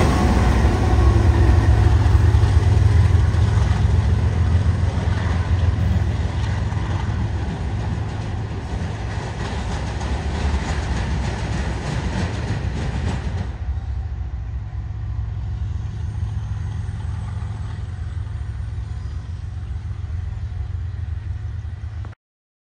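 BNSF diesel freight locomotives rumbling past close by: a steady, heavy low engine drone with rail noise that slowly fades as the train moves on. About thirteen seconds in, the sound changes abruptly to a duller, fainter rumble, and it cuts off just before the end.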